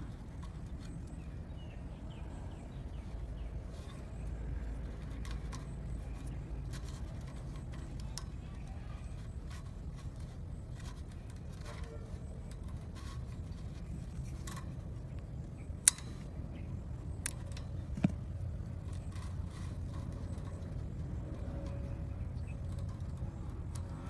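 Scattered light clicks and ticks of plastic cable ties being threaded and pulled tight around a fan guard's metal wires and a bamboo hoop, over a steady low rumble. Two sharper clicks stand out in the second half, about two seconds apart.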